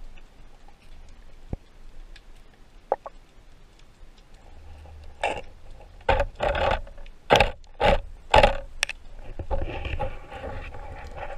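Heard underwater: a run of rough scrapes and knocks about half a second apart, then a longer scraping, as the spearfisher's body and gear rub against the rock of a narrow crevice. Faint scattered clicks come before them.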